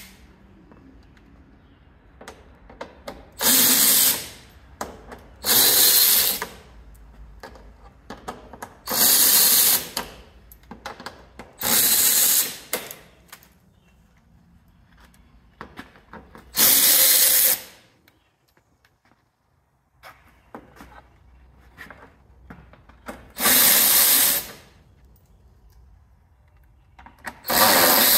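A cordless power driver spinning out the small 10 mm screws that hold the car's plastic undertray. It runs in seven short bursts of about a second each, with quiet pauses between.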